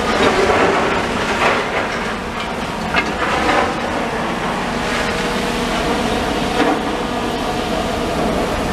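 Heavy demolition machinery working: a diesel engine running steadily under clanks and knocks of metal and rubble.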